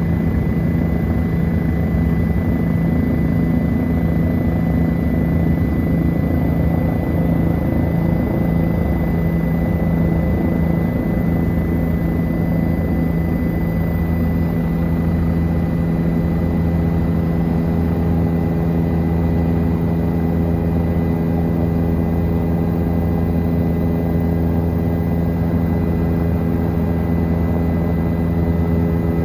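Helicopter in flight: the steady drone of its engine and rotor, with a constant pitched hum.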